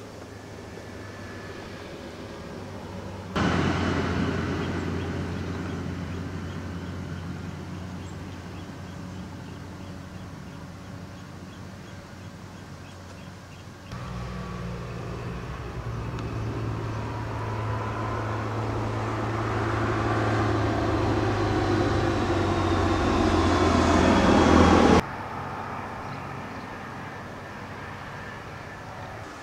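Steady engine hum with a rushing noise in abruptly cut stretches: it starts suddenly a few seconds in and slowly fades, jumps back about halfway, grows louder, then cuts off near the end.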